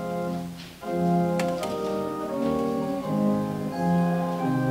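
Church organ playing slow, sustained chords that change about every second, with a brief break just under a second in. Two faint clicks come about a second and a half in.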